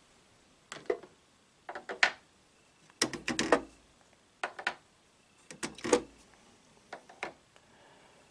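Ink cartridges being unclipped from an HP inkjet printer's carriage and set down, heard as short plastic clicks and clacks in about six separate groups a second or so apart.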